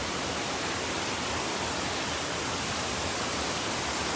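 Heavy rain and flowing floodwater: a steady, even rushing hiss.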